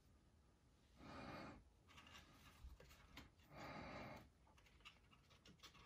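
Near silence: room tone, with two faint soft swells of noise, about a second in and about four seconds in, and a few tiny ticks.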